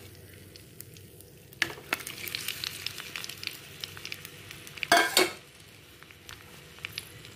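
Crushed garlic sizzling in hot sesame oil in a clay pot. About a second and a half in, chopped tomatoes are tipped in and the sizzling grows louder and busier, with two loud clatters about five seconds in.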